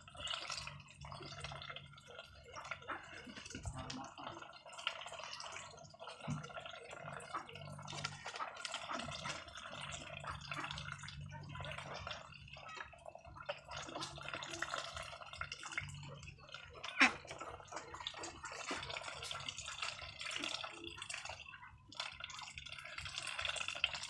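A flock of domestic ducks dabbling and feeding, their bills rapidly clicking and slurping through wet feed and water in a constant wet, dripping clatter, with a sharper click about two-thirds of the way through.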